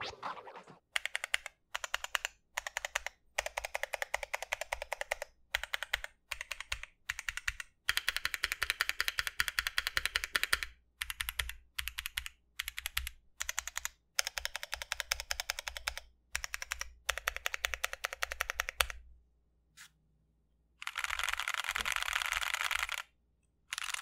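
Keys clacking on a Tofu65 aluminium-case keyboard with stock, unlubed Gazzew Boba U4T tactile switches (68 g) and PBT keycaps. The keys are pressed in runs of rapid clicks separated by short pauses. Near the end comes a longer, denser run of continuous clicking.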